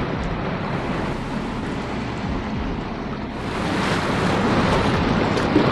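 Water rushing and splashing along a sailing yacht's hull, with wind buffeting the microphone; the rush grows louder and brighter about three seconds in.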